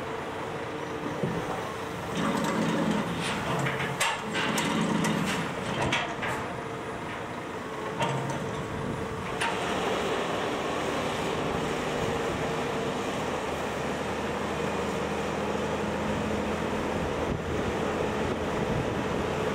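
Hitachi excavator tipping gravel from its bucket into a Scania tipper truck's steel body: several seconds of rattling, clattering impacts over the diesel engines. From about halfway, a loaded Scania truck and trailer drives off with its diesel engine running steadily.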